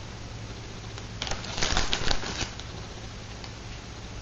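Plastic bag of shredded cheese crinkling and rustling as a hand reaches in and sprinkles cheese onto a tostada, a cluster of rustles about a second in that lasts about a second. A low steady hum runs underneath.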